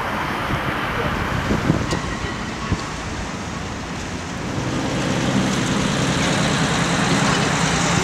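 Wind rumbling on the microphone, then from about halfway street traffic: a car driving past, its engine hum and tyre noise growing louder toward the end.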